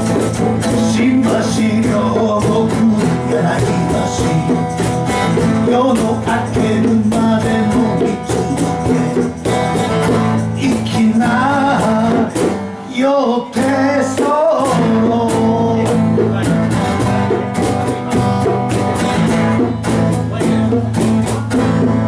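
Steel-string acoustic guitar strummed in a steady rhythm, with a man's voice singing over it for a stretch in the middle.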